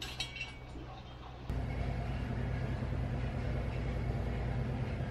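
A few light metallic clinks, then about a second and a half in, a steady low hum of workshop machinery starts abruptly and runs on evenly.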